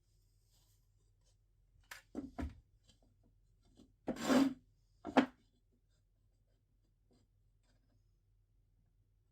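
A few short scrapes and knocks of wooden workpieces being handled: brief ones about two seconds in, a longer rub about four seconds in, and a sharp knock about a second after that.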